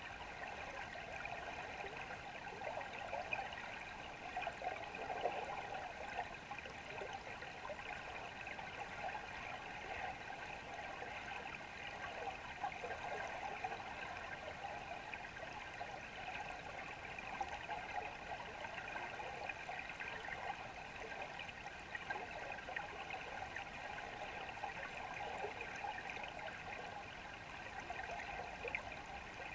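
Steady noise of flowing river water, heard underwater through a submerged camera's housing, with a few faint steady tones running through it.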